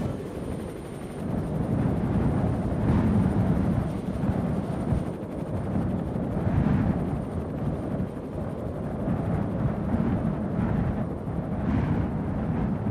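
A low, dense rumble that swells and eases every second or two, with a faint thin high whine held steady throughout.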